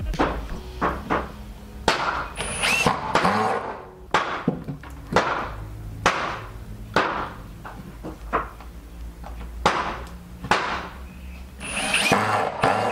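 Cordless drill driving screws into a wooden table frame in a couple of short runs, its motor whine rising, with knocks and clatter of wood and tools being handled and set down.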